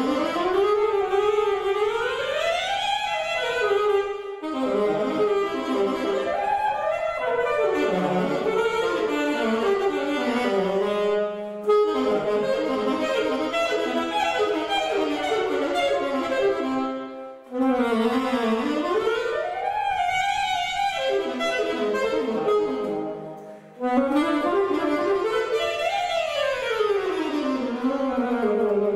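Unaccompanied alto saxophone playing a classical solo piece: fast runs sweep up and down the range, and phrases are separated by four short pauses.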